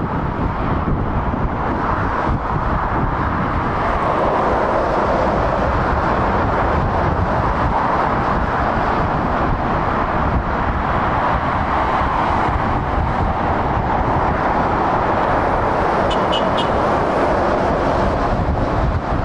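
Steady motorway traffic noise: the continuous tyre roar and engine rumble of cars and lorries passing on a busy dual carriageway. A brief high chirp is heard near the end.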